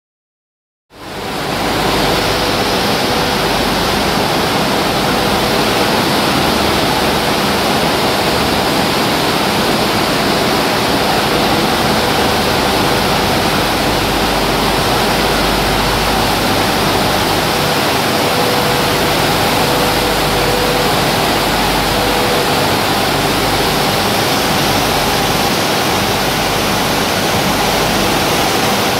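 Wheat roller flour mill plant running: a loud, steady rush of machinery noise from the roller mills and their motors, with a faint steady hum, starting about a second in.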